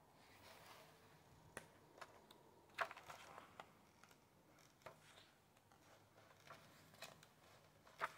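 Hands opening a hardcover book and turning its pages: quiet paper rustles and flicks, the sharpest about three seconds in and near the end.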